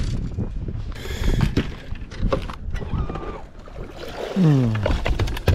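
Wind rumble on the microphone with knocks and clatter of gear being handled on a bass boat's deck and bow. A short tone falls in pitch at about four and a half seconds.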